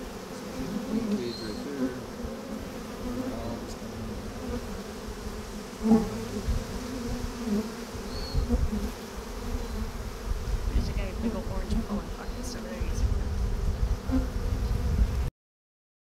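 A honeybee colony swarming over an open wooden hive box, buzzing steadily, with low rumbles and a thump about six seconds in. The sound cuts off abruptly near the end.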